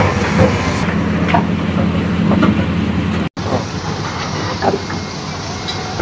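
Heavy diesel machinery, an excavator with a dump truck beside it, running with a steady low engine hum and scattered knocks and clatter of rubble. The sound drops out for an instant a little past halfway.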